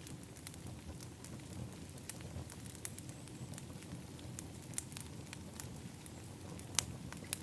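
Wood fire in an outdoor fire pit crackling, with frequent small irregular pops over a steady low rumble. One sharper, louder pop comes near the end.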